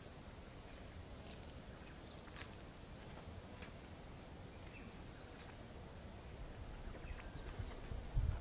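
Faint outdoor ambience: a low rumble with short, high ticks about once a second, and a dull thump near the end.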